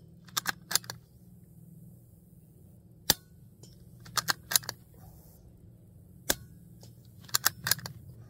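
Suppressed .22 rimfire bolt-action rifle fired twice, about three seconds apart, each shot a single sharp crack. About a second after each shot comes a quick run of three or four metallic clicks as the bolt is worked to eject and chamber the next round. The AB Suppressors AH6-Littlebird suppressor keeps the shots quieter than a BB gun.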